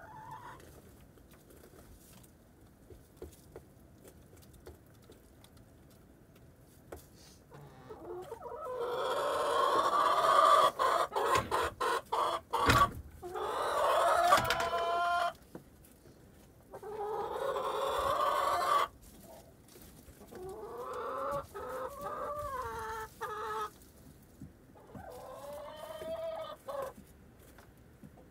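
Hens clucking and calling loudly in four bouts after several quiet seconds. The first bout, about eight seconds in, is the longest and loudest.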